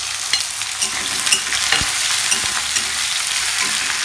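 Sliced onions sizzling steadily in hot mustard oil in a metal kadhai, frying on high flame, with a spatula scraping and stirring against the pan now and then.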